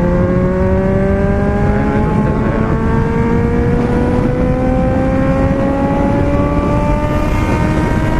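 Four-cylinder car engine pulling in one gear, its pitch climbing slowly and steadily as the revs rise, with road noise underneath.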